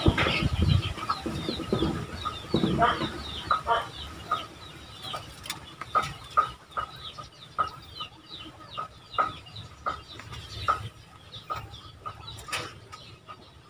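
Farm poultry calling: a run of short, high, falling peeps several times a second, with brief clucks about every half second.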